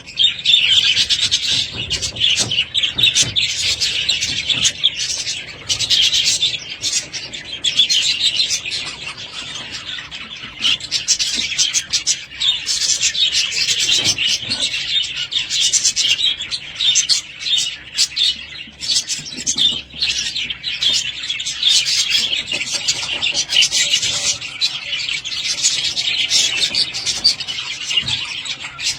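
Budgerigars chattering and warbling, a dense run of fast chirps and twitters with a brief lull about ten seconds in.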